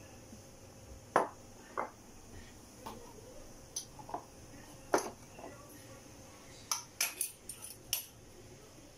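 A metal spoon clinking and knocking against a glass jar, a dozen or so separate sharp strikes that come faster in a cluster near the end.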